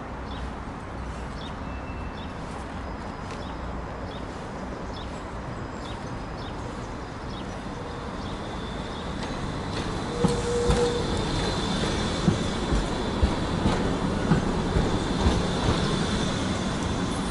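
Low-floor articulated tram approaching and drawing alongside, louder from about nine seconds in, with a high steady whine and its wheels knocking repeatedly over the rail joints.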